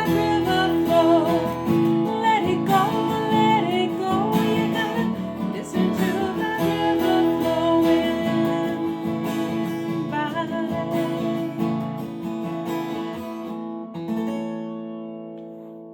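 Acoustic guitar with a partial capo on the second fret, played through G, A minor, C and D chord shapes. A final chord is left ringing and fades out over the last few seconds.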